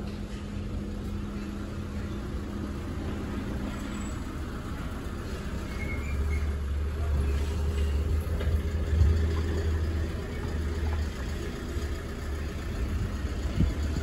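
Low rumble of road traffic with a motor vehicle engine running close by, swelling louder around the middle.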